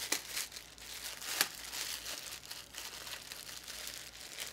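Plastic wrapping crinkling as it is handled and pulled off a sword's hilt, with a sharp crackle about a second and a half in.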